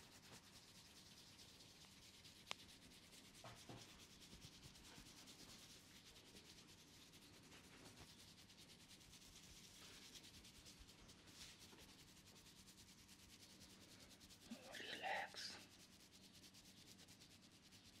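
Fingers rubbing and kneading wet hair against the scalp in a head massage: a soft, steady rustling, with a single click a couple of seconds in and a louder scrunch lasting about a second near the end.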